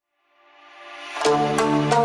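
Background music fading in from silence: sustained chords swell over the first second, then the full track with a steady percussive beat comes in about a second in.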